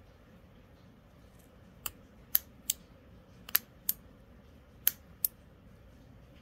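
Steel scissors snipping through strands of black hexagonal-mesh net fabric. About seven sharp snips come in irregular succession, starting about two seconds in and ending a little past five seconds. A faint steady hum lies underneath.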